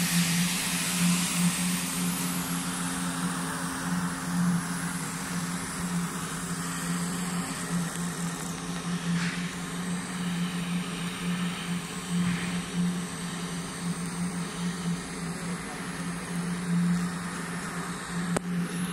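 Steady hum with a hiss over it from TIG welding a root pass on small-bore duplex stainless steel pipe, running without a break.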